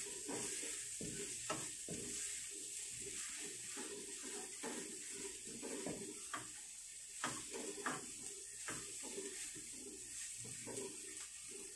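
Blended spice paste sizzling in oil in a nonstick pan, stirred and scraped with a wooden spatula: a steady sizzle with irregular scraping strokes through it.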